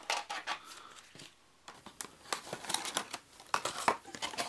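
Clear plastic security clamshell packaging crackling and clicking in irregular bursts as it is handled and pulled apart to free a small cardboard box, with a short pause partway through.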